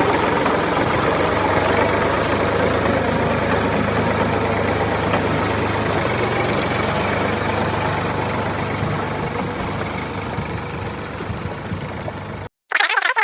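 Small engine idling steadily, growing a little quieter over the last few seconds, then cutting off abruptly near the end.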